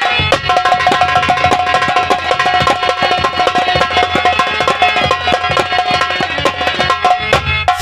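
Nautanki band music: hand drums playing fast, dense strokes under a melody of long held notes, with a deep drum rumble underneath for most of it.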